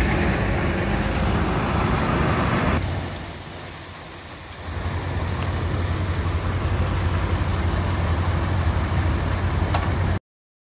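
Antique farm tractor engines running as the tractors drive slowly past, one after another. The later, smaller tractor gives a steady low engine rumble. Near the end the sound cuts off abruptly to dead silence, a recording dropout.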